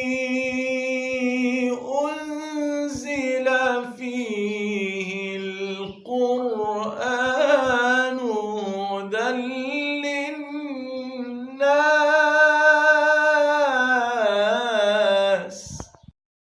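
Male Qur'an reciter chanting solo in melodic tajweed style, unaccompanied and with no added sound effects. He holds long notes with wavering ornamental turns and brief pauses for breath, and stops about a second before the end.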